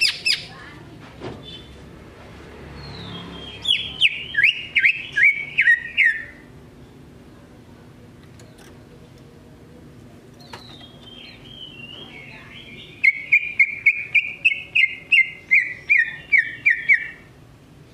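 Male cucak ijo (green leafbird) singing: a short loud call right at the start, then two phrases of quick repeated notes, each note falling in pitch, about three to four a second. The second phrase is the longer.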